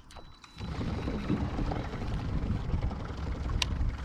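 Wind buffeting the microphone, an uneven low rumble that sets in about half a second in. A single short sharp click sounds near the end.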